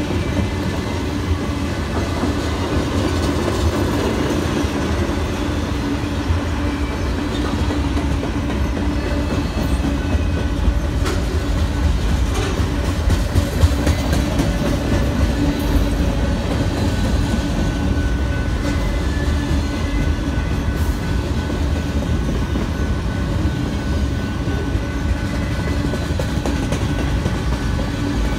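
Freight train cars rolling past: a steady rumble of steel wheels on rail, with wheel clicks over the rail joints. The passing cars are tank cars, gondolas and centerbeam flatcars loaded with lumber.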